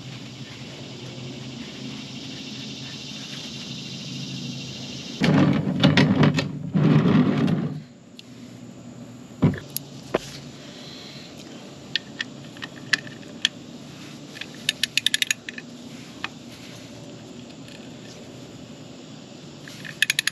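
Sharp metallic clicks, some single and some in quick runs, as a wrench works the oil drain bolt in the motorcycle's oil pan. About five seconds in there are two loud bursts of handling noise lasting a couple of seconds.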